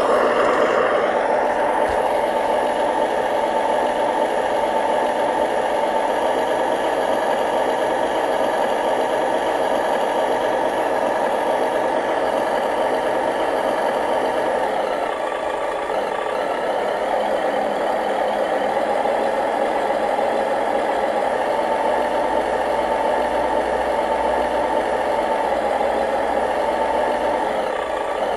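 Remote-control model construction vehicle running steadily: a continuous motor-and-gear hum with no clear breaks, easing off slightly about halfway through.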